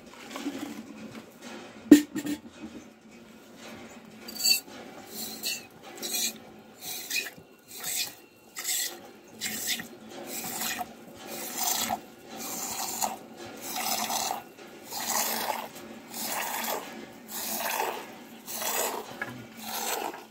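Buffalo being hand-milked into a steel bowl: jets of milk hiss into the metal bowl in a steady rhythm, about three squirts every two seconds, starting a few seconds in. A single sharp knock about two seconds in.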